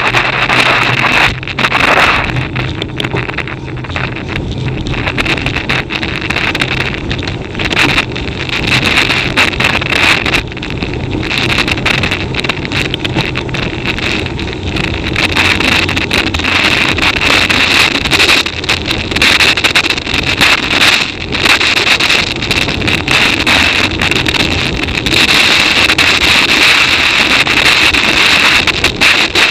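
Wind buffeting the microphone of a bicycle-mounted camera during a fast downhill run, a loud rush that rises and falls and grows louder and brighter over the last few seconds.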